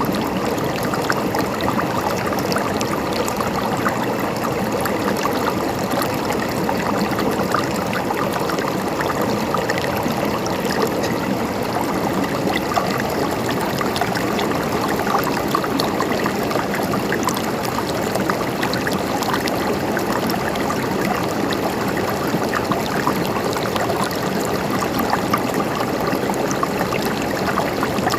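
Running water gurgling and trickling steadily, with many small splashes and droplets and no pause.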